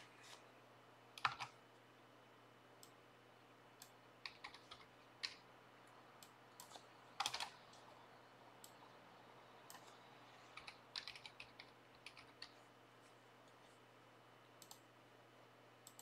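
Computer keyboard typing: scattered keystrokes in short bursts with pauses between, over a faint steady hum.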